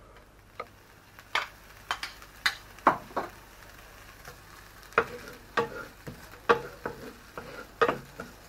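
Wooden spoon scraping and knocking against a frying pan as chopped onion is stirred, about two strokes a second with a short pause midway, over a faint sizzle of the onion softening on low-to-medium heat.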